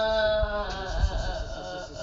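A voice holds one pitched note for about half a second, then trails off into quieter voices.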